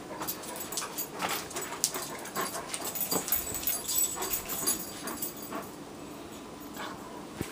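Dogs whimpering in short excited cries, with many sharp clicks of claws on a tile floor.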